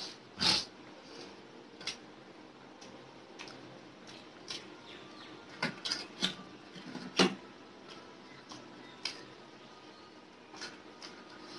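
Eating by hand at close range: scattered short lip smacks and chewing clicks, with fingers mixing rice and chicken curry on a steel plate. The sharpest clicks come about half a second in and about seven seconds in.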